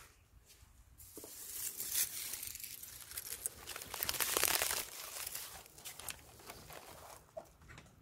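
Camera handling noise: crackling, rustling scrapes close to the microphone as the camera is moved and set in place. The noise starts about a second in, is loudest a little after halfway, and dies down near the end.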